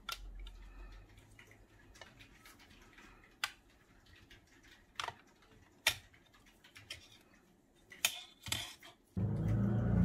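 Scattered light clicks and taps of metal parts as the perforated metal Wi-Fi antenna cover of a 2012 Mac Mini is lifted off and laid down, with a screwdriver in hand; about seven short clicks with quiet between them. Just before the end a louder steady low hum comes in.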